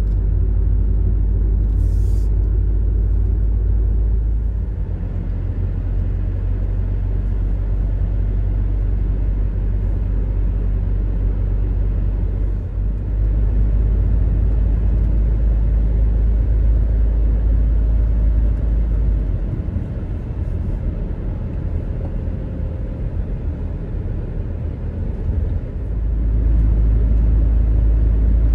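Car driving on an open road, heard from inside the cabin: a steady low rumble of engine and tyres. It eases off for several seconds in the second half, then grows louder again near the end.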